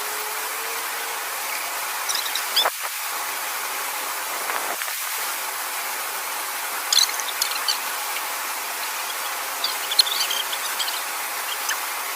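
Small clusters of short, high squeaky chirps, a few times, over a steady hiss of water rushing through an irrigation weir.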